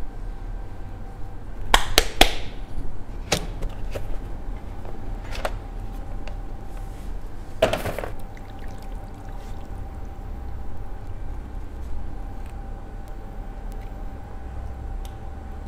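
Kitchen handling sounds as gloved hands work flour in an enamel bowl and lift chicken wings out of a plastic tub. There are a few sharp clicks and knocks, three in quick succession about two seconds in and a heavier clatter around eight seconds, over a steady low hum.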